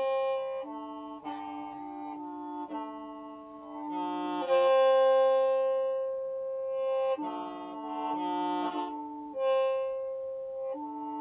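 Qeej, the Hmong bamboo free-reed mouth organ, playing several notes at once: held chords that shift every second or two, with a longer held chord in the middle.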